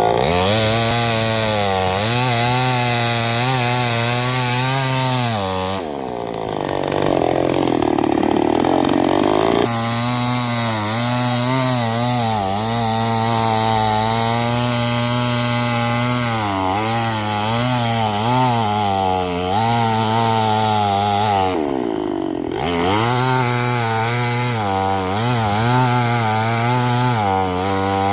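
Chainsaw running hard while cutting wood, its pitch wavering under load. Twice, about a quarter of the way in and again about three-quarters through, the engine drops in speed before climbing back up.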